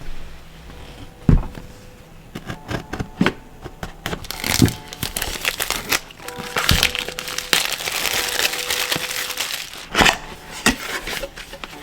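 Unboxing handling: plastic and cardboard packaging crinkling and rustling, broken by several sharp knocks and clacks of the box and its contents.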